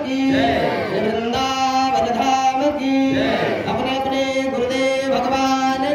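Devotional Hindu singing, a chant in phrases with long held notes.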